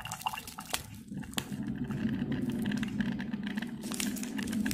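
Foil sachet crinkling and crackling in the hand in irregular clicks, over the steady hum of a small electric water heater heating water toward the boil.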